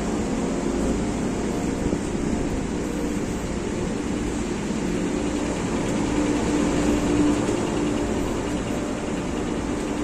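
Steady drone of a large ship under way: a constant low rumble and faint machinery hum under an even rushing noise, with no distinct events.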